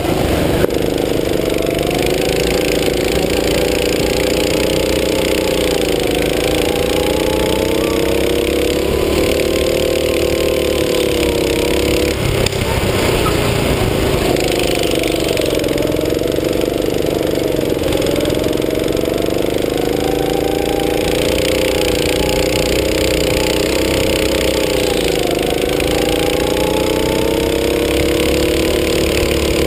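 Go-kart engine running hard, its pitch rising and falling with the throttle, dipping every several seconds as the kart slows for corners, with a steady hiss over it.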